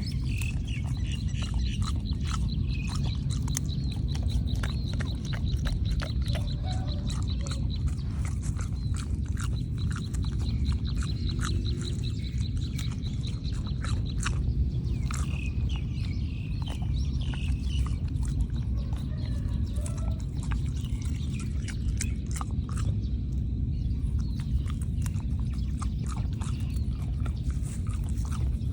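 An animal grazing: irregular crisp crunches and snaps of grass being torn and chewed, over a steady low rumble. A fast, high pulsing trill runs through the first half, with a short break.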